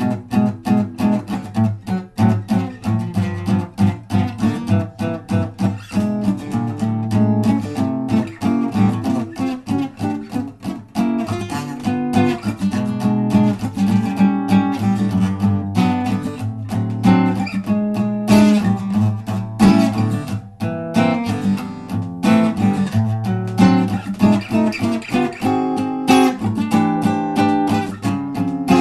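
Acoustic guitar played solo without singing, an improvised jam of strummed chords and picked notes.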